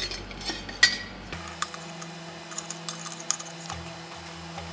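Light, scattered metallic clicks and clinks of a steel plate held in tongs being shifted and pressed under a fly press's ball dishing tool, over a steady workshop hum.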